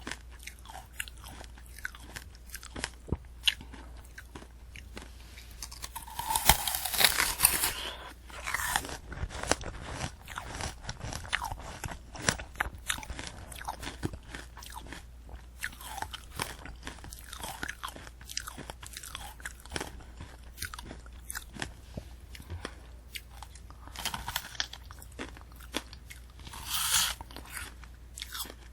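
Close-miked eating of a candy apple: crisp, crackling bites and chewing through the hard candy shell and apple flesh. There is a run of louder crunching about six seconds in, and another short burst near the end.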